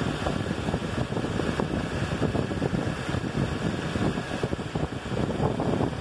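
2012 Toyota Hilux gasoline VVT-i engine running roughly with an uneven beat: it is misfiring.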